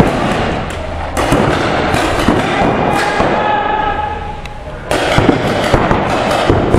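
Several paintball markers firing rapid strings of shots, the pops overlapping in bursts with two short lulls.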